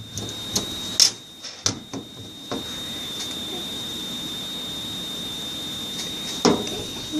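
A few sharp clicks and knocks from small plastic food colouring bottles being picked up, handled and set down on a table, the loudest about a second in and another near the end. A steady high-pitched whine runs underneath.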